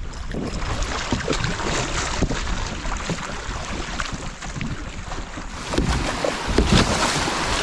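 Water rushing and splashing around a paddled kayak, with wind buffeting the action-camera microphone. It grows louder about six seconds in, as the kayak runs through fast, shallow white water.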